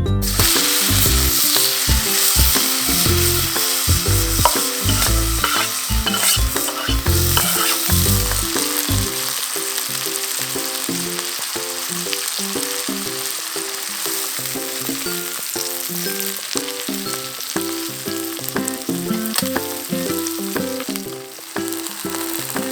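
Chicken frying in hot oil in a copper pan, a steady dense sizzle, somewhat louder in the first eight seconds or so.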